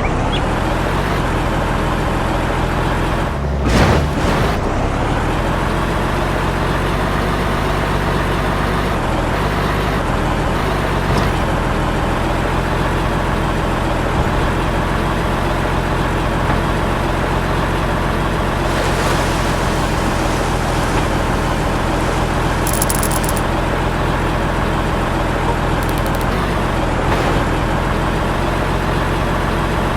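Engine running steadily at a constant speed, with a brief louder burst of noise about four seconds in.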